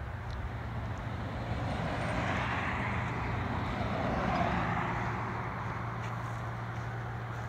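An SUV driving past on a paved road, its tyre and engine noise swelling to a peak about four seconds in, then fading as it goes away.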